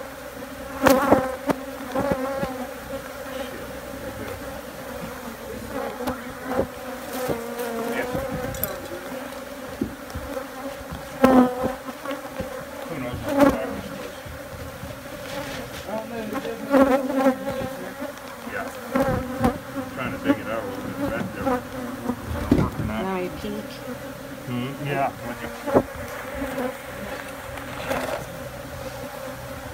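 Dense swarm of Africanized honey bees buzzing steadily around an opened wild colony. Irregular knocks and scrapes from honeycomb being cut and handled into a plastic bin sound over the buzz.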